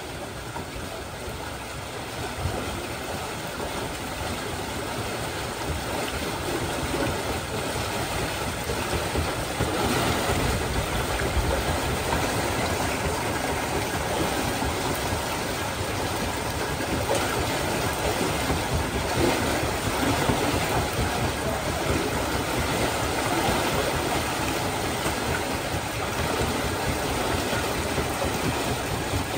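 Water pumped off a flooded paddy field gushing and churning through a drainage channel in a steady rush, swelling a little over the first ten seconds.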